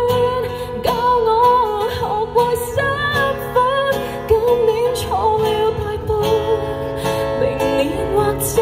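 Live song performance: a woman singing a Cantonese pop song over a strummed acoustic guitar.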